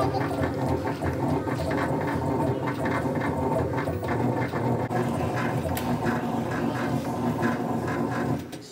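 Quick-Tag kiosk engraving machine running as its stylus engraves a metal pet ID tag: a steady, busy mechanical rattle with fine, rapid ticking that stops abruptly shortly before the end.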